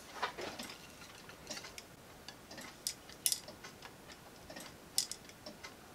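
Sparse, irregular sharp clicks and light knocks of 3D-printed plastic clock parts being handled and fitted together, some in quick pairs.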